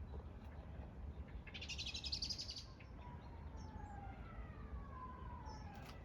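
A songbird gives a brief, rapid trill about two seconds in. Then comes a distant siren's long, slowly falling wail, over a low steady rumble.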